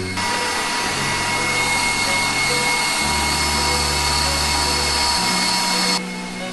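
Stand mixer motor driving a spiral apple peeler, corer and slicer attachment as it turns and peels an apple: a steady loud whir with a high whine that cuts off suddenly about six seconds in.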